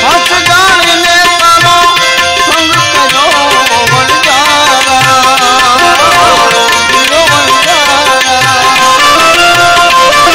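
A male voice sings an ornamented Gujarati bhajan melody over sustained harmonium chords, with tabla keeping a steady beat of deep bass-drum strokes.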